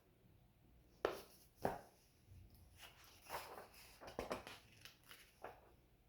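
Paper pages of a picture book being handled and turned: two sharp clicks followed by a few soft rustles.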